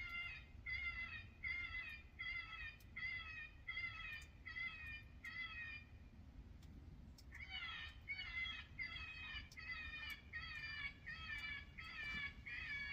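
Electronic predator call playing a repeated animal distress cry, about two short falling cries a second. It pauses about six seconds in, then starts again.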